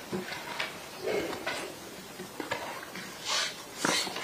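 Courtroom room sound: scattered soft knocks and rustling, with two short breathy hisses near the end.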